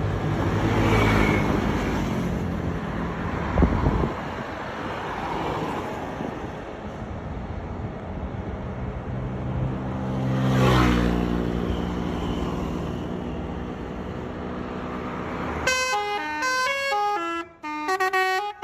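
Heavy vehicles passing on a road with engine and tyre noise, one close by about a second in and another, sliding down in pitch as it goes by, about eleven seconds in, with a single knock a few seconds in. In the last few seconds a basuri (telolet) musical horn plays a quick melody of stepped notes.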